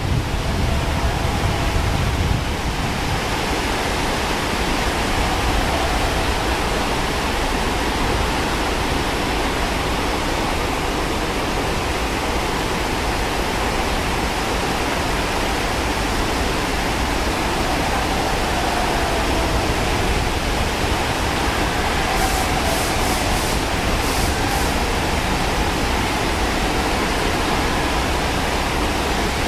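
Fast-flowing stream rushing over rocks in rapids: a loud, steady wash of white water. Wind rumbles on the microphone in the first couple of seconds.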